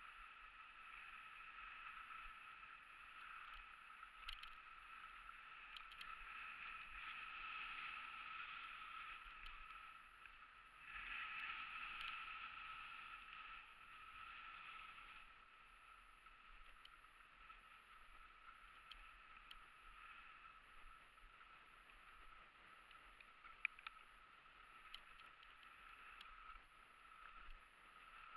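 Faint, muffled hiss of skis sliding over a groomed piste, louder for a few seconds about halfway through, with an occasional faint click.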